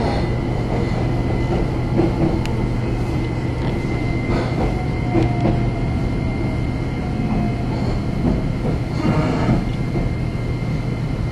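Cabin running noise of a JR Kyushu electric local train on the Kagoshima Main Line: a steady low rumble of wheels on rail with scattered knocks from the track and a faint steady high whine.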